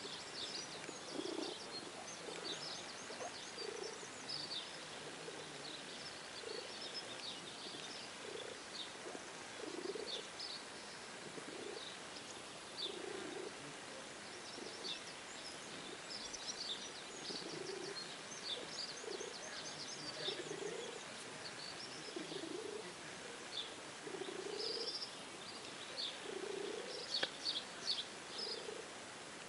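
Wild birds chirping and trilling, with short, high calls scattered throughout. Underneath runs a lower call, repeated every second or two.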